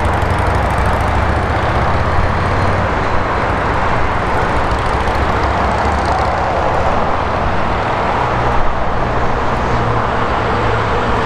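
Steady engine rumble with a low drone that shifts up slightly about eight seconds in.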